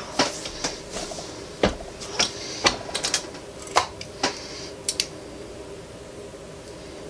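About a dozen sharp clicks and clinks over the first five seconds, over a low steady hum. This is reloading gear being handled: a seated 6.5 Grendel cartridge is taken out of a single-stage reloading press and closed in digital calipers.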